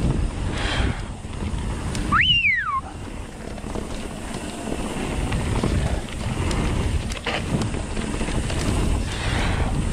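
Wind buffeting the microphone over the rumble of a mountain bike rolling fast down a trail. About two seconds in, a brief high squeal glides up and falls away.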